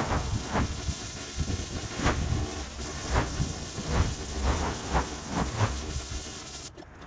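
Pressure washer jet blasting moss off a garage roof: a steady hiss of spray with a low rumble, surging irregularly every second or so as the lance sweeps. The hiss thins out briefly near the end.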